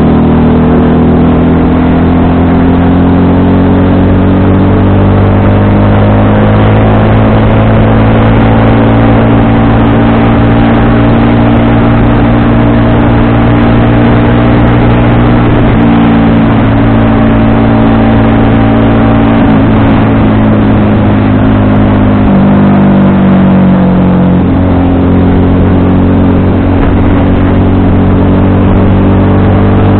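FKM Victorino 250i V-twin motorcycle engine running loud and steady on the road, its pitch slowly climbing through the first half and shifting a few times later on.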